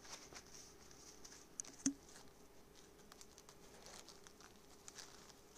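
Near silence: faint room tone with a low steady hum and a few scattered small clicks, the loudest a pair about two seconds in.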